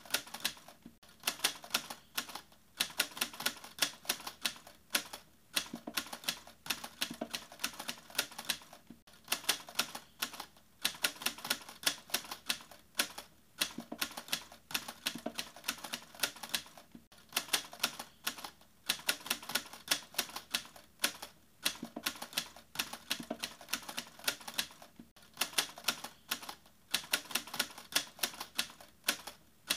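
Rapid, typewriter-like clicking in runs, breaking off briefly every two to three seconds.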